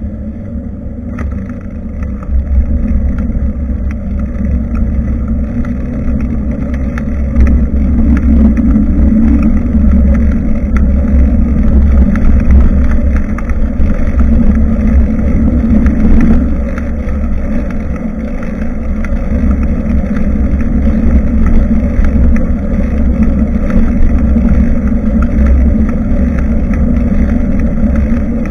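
Loud, steady, low rumble of wind and road noise picked up by a bicycle-mounted action camera while riding, growing louder about two seconds in and again a few seconds later.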